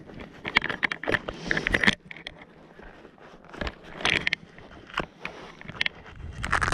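Irregular close rustling, crackling and clicking of handling and movement, busiest in the first two seconds and again near the end.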